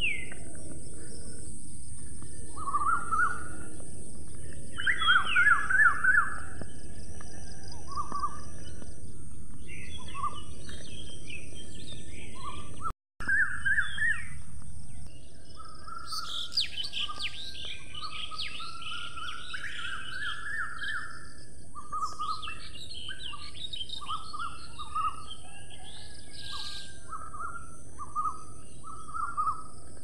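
Several birds calling and singing with short repeated chirps and trills, over a steady high hiss. The sound cuts out briefly about thirteen seconds in and resumes slightly quieter.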